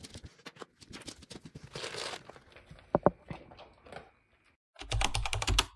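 Dry dog kibble rattling and rustling as it is scooped and poured into a dog bowl, followed by scattered crunches and clicks as an English setter starts eating. A quick run of loud clicks comes near the end.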